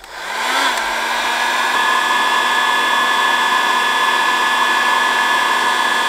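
Electric heat gun switched on, its fan spinning up during the first second and then running steadily with a rushing whine as it shrinks heat-shrink tubing over a soldered wire terminal.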